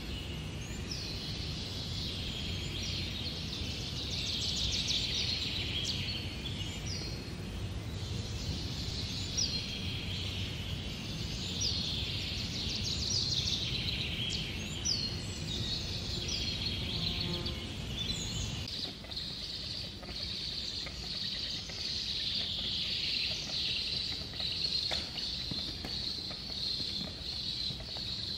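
Woodland birds calling: a short, high chirp repeated every second or two over a steady chorus of high bird calls. A low rumble runs underneath and stops abruptly about two-thirds of the way through.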